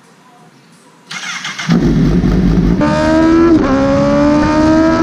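Sport motorcycle engine revving hard under acceleration on a track, its pitch climbing with a short dip about three and a half seconds in. It is faint for the first second, then loud.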